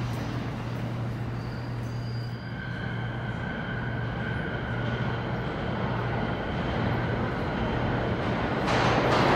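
New York City subway train approaching through the tunnel into the station, its rumble growing louder over a steady low hum, with a faint high whine in the middle. The noise swells sharply near the end as the train draws in.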